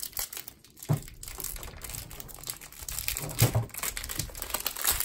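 Clear plastic wrap crinkling and crackling as it is peeled by hand off a new speedcube, with a couple of soft handling knocks about a second in and again near three and a half seconds.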